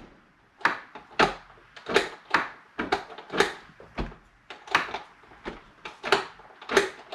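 A run of sharp knocks and clicks, about two a second with slightly uneven spacing, from hand work on a door and its new lock hardware.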